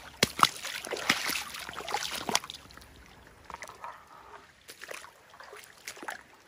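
Water splashing and sloshing: a busy run of splashes in the first two and a half seconds, then scattered small splashes.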